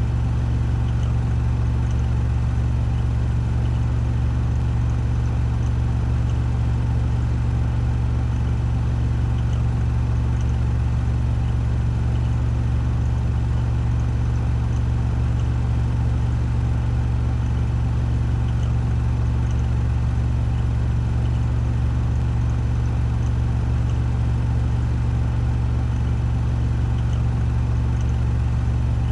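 Washing machine drum spinning at full speed (1400 rpm) in its spin cycle: a steady, unbroken low hum with a mechanical whir.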